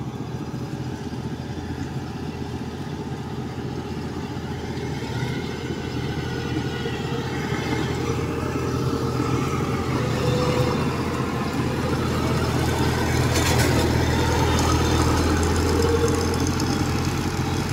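Kubota DC-105X crawler combine harvester's diesel engine running steadily as the machine drives along, growing louder as it approaches and passes close by.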